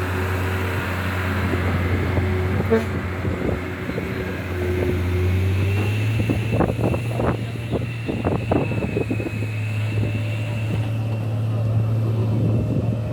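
Sany hydraulic excavator's diesel engine running steadily. About halfway through, its pitch steps up as it takes load, and a high whine and a run of knocks come in for a few seconds.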